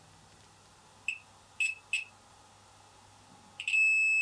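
Multimeter continuity beeper: three brief chirps about a second in as the probes make broken contact on the coil lugs, then a steady high beep from about three and a half seconds in, showing continuity through the repaired coil winding.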